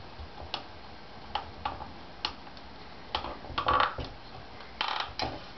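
Small hardware handled by hand: a bolt and a plastic corner clip being fitted together, giving irregular light clicks, then a few louder spells of rattling and scraping in the second half.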